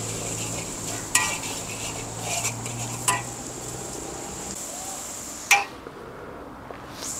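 Mee goreng being stir-fried in a wok: a metal spatula clanks and scrapes against the wok over a steady sizzle, with sharp clangs about a second in, three seconds in and five and a half seconds in, after which the sizzle drops away.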